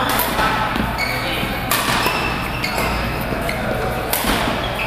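Badminton rackets hitting a shuttlecock back and forth in a rally: several sharp, crisp hits about a second apart, echoing in a large sports hall.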